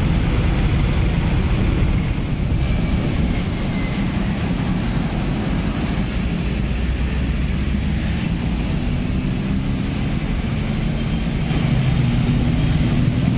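Road traffic of motor scooters and cars, their engines running steadily as they pull away in a crowd, with an engine note rising near the end.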